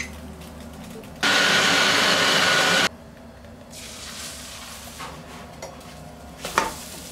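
Egg batter sizzling in a hot nonstick frying pan, a soft steady hiss, with a sharp clack about six and a half seconds in as a spatula flips the omelette. Earlier, a loud steady rushing noise runs for under two seconds and starts and stops abruptly.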